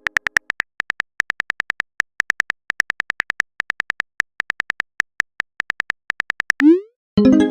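Phone keyboard typing sound effect: many quick clicks in irregular bursts, then a short rising swoosh of a message being sent near the end, followed by the start of a chiming notification tone.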